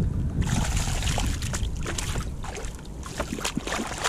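A hooked tailor thrashing at the surface as it is scooped into a landing net beside a kayak: irregular splashing and sloshing of water, with a steady low rumble underneath.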